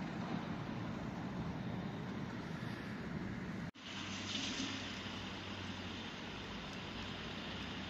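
TEM2 diesel shunting locomotive running with a steady low engine hum and a rushing noise. The sound cuts out for an instant a little under four seconds in. It comes back with a short hiss, then the same steady running.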